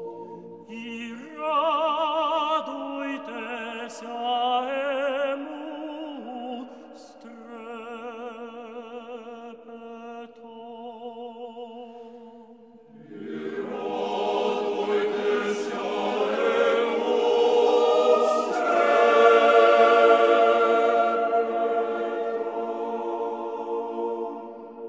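Music of sung voices with strong vibrato over a held drone note. It turns fuller and louder about halfway through.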